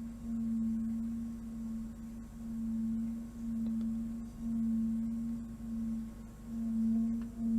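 A single sustained low humming tone, swelling and fading in loudness about once a second: a meditation drone.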